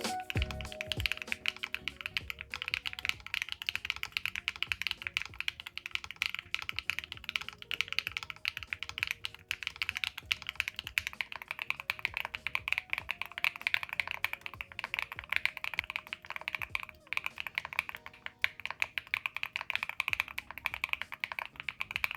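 Continuous fast typing on an Evanthe 60 custom mechanical keyboard: a dense, unbroken run of key clacks.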